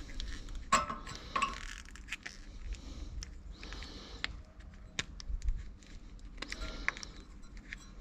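Metal tools and brake parts clinking and knocking as they are handled during brake work. Two ringing clinks come in the first second and a half, then scattered sharp clicks and a couple of short scraping sounds.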